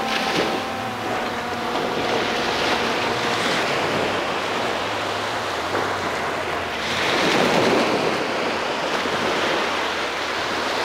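Surf washing on the beach with wind buffeting the microphone, swelling louder for a moment about seven seconds in. A faint motor whine from the bait-carrying quadcopter drone fades out in the first second as it flies off over the water.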